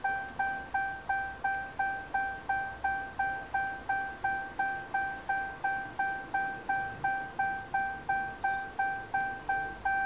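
Ram truck's dashboard warning chime dinging over and over, about three short dings a second, then holding one longer tone near the end, while a plug-in programmer in the OBD2 port programs the power-folding mirror feature.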